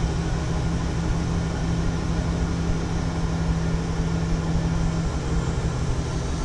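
Chevrolet SSR's power retractable hardtop closing: its drive motor hums steadily over a low rumble, then cuts off about five seconds in as the roof reaches its closed position.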